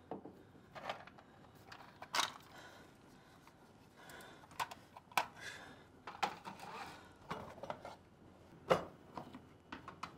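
Light clinks, knocks and rustles of small household objects being handled: a china teacup and an octagonal plastic box with its lid. A sharper knock comes near the end.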